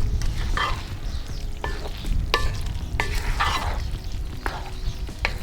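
A spoon or whisk stirring and scraping in a cooking pot, with several sharp clicks of the utensil against the pot, over a steady low rumble.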